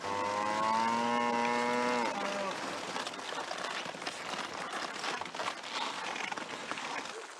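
A cow moos once, a loud call of about two seconds that dips slightly in pitch at the end. A rustling noise with small knocks follows.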